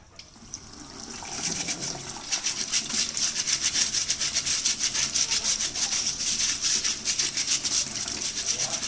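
Bristle brush scrubbing debris off a dishwasher filter in quick, rhythmic strokes, building up about a second in. The filter is clogged with paper labels, the cause of the E22 blocked-filter error.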